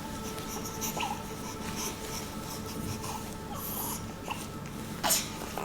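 Quiet room with a steady faint hum, a few soft small sounds, and a short breathy sniff or exhale about five seconds in.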